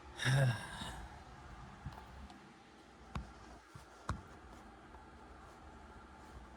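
A brief low vocal grunt at the start, then a few sparse light clicks and taps, about a second apart, against a quiet background hum.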